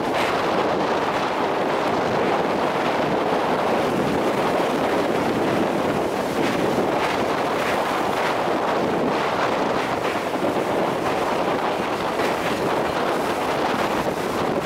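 Wind rushing over the microphone at the open window of a moving passenger train, a steady rush with the train's running noise underneath.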